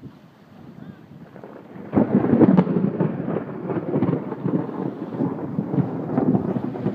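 Strong gusting wind buffeting the microphone, rising sharply about two seconds in, with waves splashing against a seawall.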